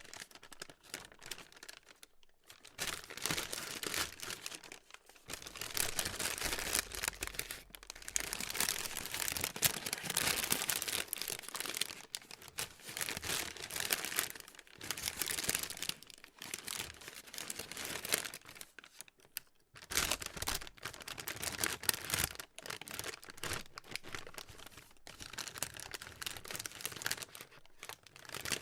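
Plastic being crinkled and crumpled by hand, a dense crackling in bouts of a few seconds with brief pauses between them.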